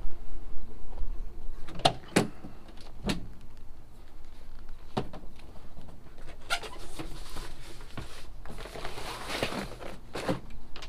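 A child's bicycle being loaded into a pickup truck's bed: a few separate knocks, then a longer stretch of rattling and clatter starting about six seconds in, with one more knock near the end.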